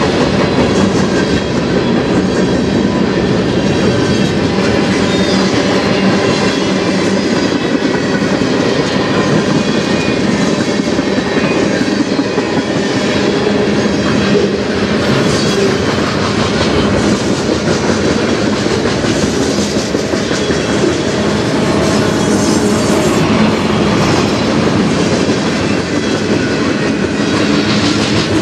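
Freight cars of a passing train, including centerbeam lumber flatcars and tank cars, rolling by at close range. Steel wheels rumble steadily on the rail, with a clickety-clack over the rail joints and a faint high wheel squeal throughout.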